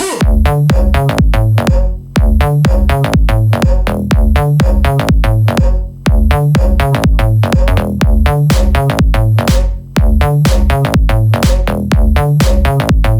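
Electronic dance music with a steady, fast drum-machine beat and heavy bass.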